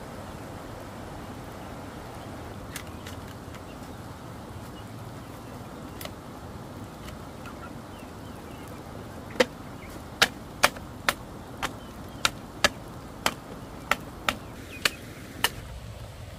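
Sharp knocks of bamboo striking bamboo, about a dozen, roughly two a second, starting about halfway through and stopping shortly before the end, over a steady rushing background.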